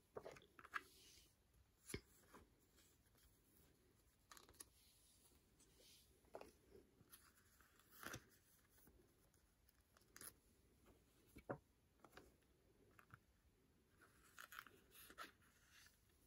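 Faint rustling of clear plastic binder sleeves and light taps as photo prints are slid into the pockets, a few scattered sounds every second or two with a couple of sharper clicks.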